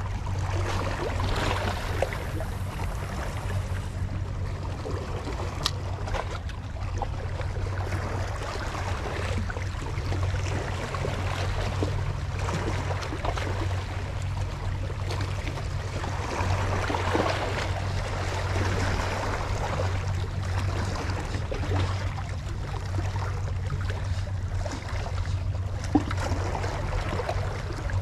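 Sea water lapping and splashing against shoreline rocks, swelling and easing, over a steady low hum.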